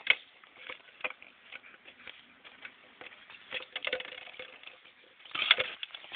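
Irregular clicks and taps of a hollow plastic bottle being pawed, chewed and knocked about on concrete paving by an Akita puppy, with a louder burst of clattering about five and a half seconds in.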